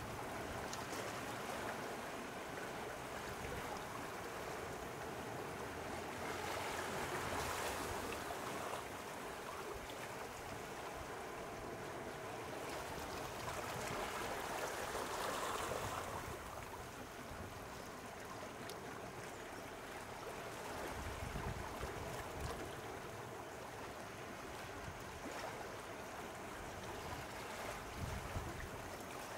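Small sea waves washing and lapping at the shore in a steady wash that swells twice. A few short low rumbles come near the end.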